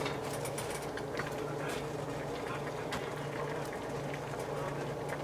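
Broth simmering in a frying pan over a steady low hum, with a few light rustles and soft clicks as cabbage and sliced mushrooms are set into the pan.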